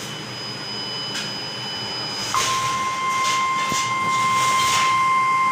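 A steady hiss, then about two seconds in a single steady alert tone starts and holds: the long beep of an emergency weather alert warning, played through a laptop speaker.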